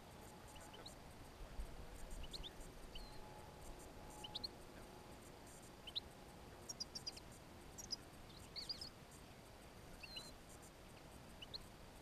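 Small finches calling: short, high chirps scattered throughout, with a few quick clusters about two-thirds of the way in.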